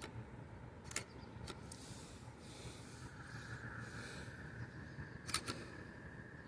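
Faint handling noise of a phone held by hand: a few sharp clicks and knocks as it is moved and rubbed against skin, the loudest pair about five seconds in, over a low steady rumble.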